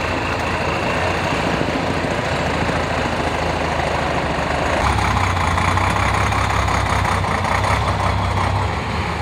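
Heavy diesel engine of a Tatra 8x8 trial truck running under load as it crawls over a steep mound, growing louder about five seconds in as it works harder.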